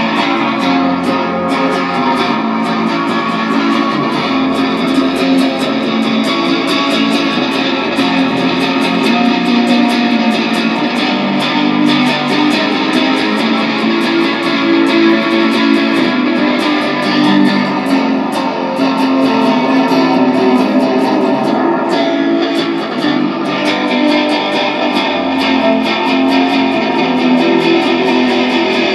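A band jamming: electric guitar strummed and picked over bass guitar, loud and continuous, an improvisation being worked out.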